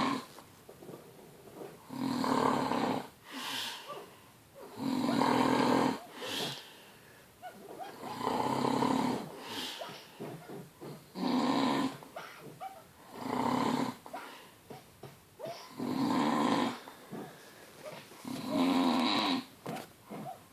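Loud snoring: one long snore about every two and a half to three seconds, seven in all, with fainter snuffling breaths between.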